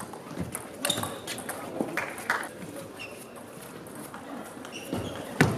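Table tennis rally: the ball clicking off the players' bats and the table at uneven intervals, with the loudest hit near the end.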